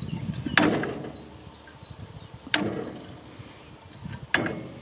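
Three metallic clunks about two seconds apart, each with a brief ring. They come from the swinging crosscut-table frame of a McConnel mobile sawbench being swung against the locking pins that limit its travel.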